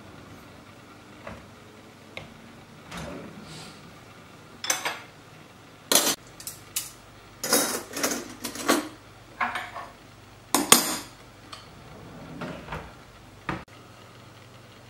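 Stainless-steel cutlery clinking and clattering as it is handled and sorted in a kitchen drawer, a string of separate clinks with the loudest about two-fifths in and about two-thirds of the way through. A sharp knock near the end as a kitchen cabinet flap is opened.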